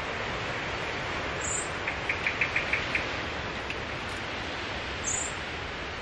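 Steady outdoor background hiss with two brief, very high bird chirps, and about two seconds in a quick run of seven or so light ticks.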